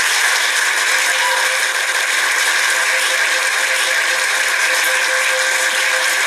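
Crowd applauding steadily: a dense, even clatter of many hands clapping.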